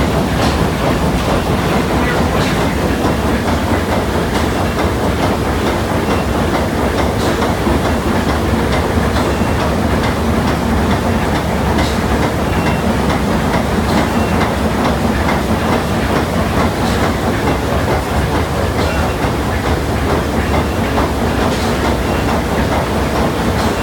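The TSS Earnslaw's triple-expansion steam engine running, heard up close in the engine room as a loud, steady mechanical noise.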